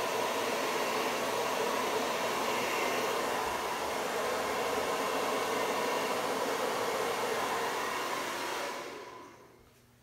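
Hair dryer with a nozzle attachment blowing steadily, air rushing over wet acrylic paint. It is switched off about nine seconds in and winds down.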